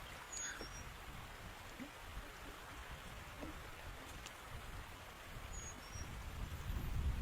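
Strong wind gusting, rumbling on the microphone and easing before it swells again near the end, over a steady hiss. Two brief high chirps come about half a second in and again near six seconds in.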